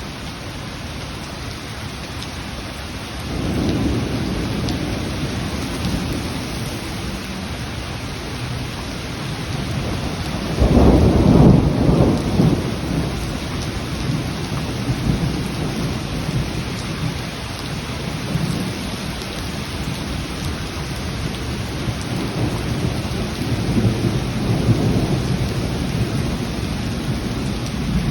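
Steady heavy rain during a thunderstorm, with thunder rumbling several times: a low roll about three seconds in, the loudest rumble about ten seconds in, and a weaker one near the end.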